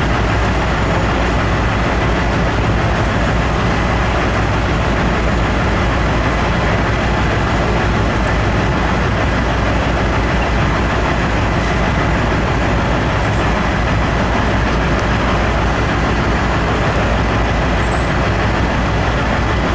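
Komatsu 186-tonne autonomous mining haul truck running steadily with a deep rumble as it moves off slowly under wired remote control.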